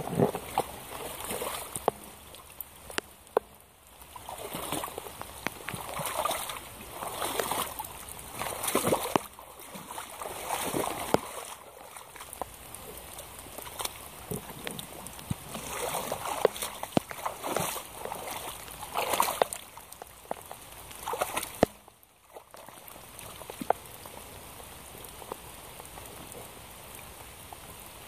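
Yellow Hunter rubber wellington boots sloshing and splashing through a rain puddle, in repeated bursts a second or two apart, then settling for the last few seconds into a steadier, quieter wash of water with rain falling.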